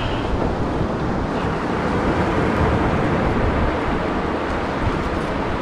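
Steady wind rushing over the microphone, with surf on the beach behind it: an even, fairly loud roar, heaviest in the low end.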